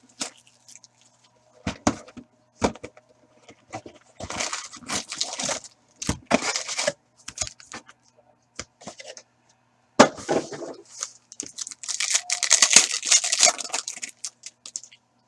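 Plastic wrap and cardboard packaging of a sealed box of trading cards being torn and crinkled open, in several bursts with sharp clicks between, the longest burst near the end.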